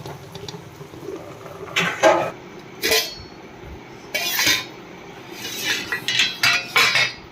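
Kitchen utensils and dishes clinking and scraping in a series of short, separate bursts, more closely spaced near the end.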